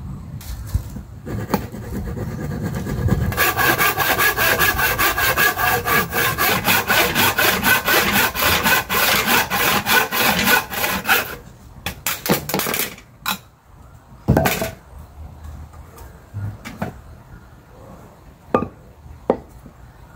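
Handsaw cutting through a bark-covered tree branch log in quick, even strokes for about eight seconds, then stopping. A few wooden knocks follow, the loudest about three seconds after the sawing ends.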